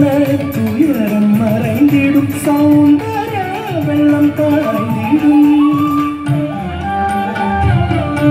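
Carnatic dance music: a melodic line with sliding ornaments over drum accompaniment.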